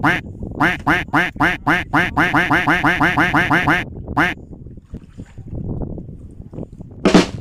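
Duck quacking: a run of short nasal quacks that speeds up to about five a second, stops about four seconds in, then gives one more quack.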